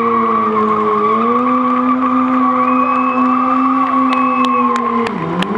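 Stunt motorcycle engine held at high, steady revs over a steady tyre screech. The revs step up slightly about a second in, then drop and waver near the end, with a few sharp clicks.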